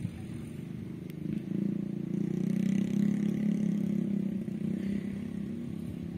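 A motor engine humming steadily; it grows louder about a second and a half in, then slowly fades.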